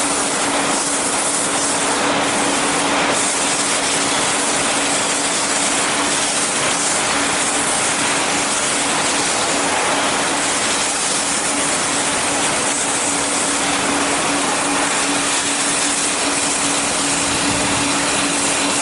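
Techduc BL1-H brake lathe running with a disc rotor mounted: a steady hum under a constant hiss.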